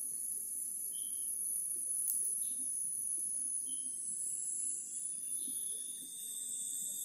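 Steady, high-pitched insect drone, with a few short chirps about one, two and a half and four seconds in, over faint background noise.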